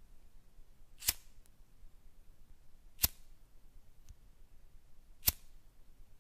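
Three sharp, brief clicks, evenly spaced about two seconds apart.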